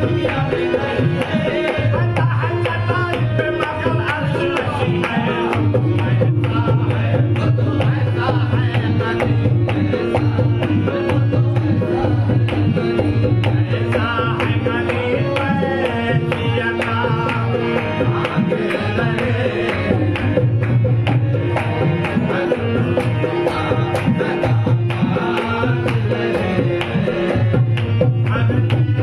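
Qawwali music with tabla drumming under a melody line, playing steadily.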